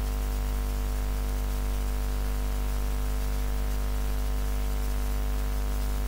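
Steady electrical hum with a layer of hiss, unchanging throughout, with no sign of the poults calling.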